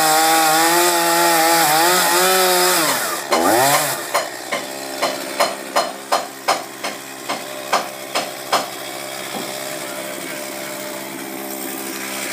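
Chainsaw cutting into a large timber beam at high revs; about three seconds in the throttle is let off, with a brief rev. The saw then idles steadily while about a dozen sharp knocks sound, roughly two a second.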